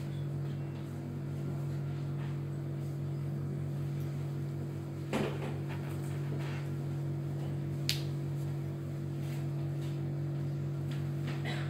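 Steady low electrical hum of room equipment, with two short clicks about five and eight seconds in.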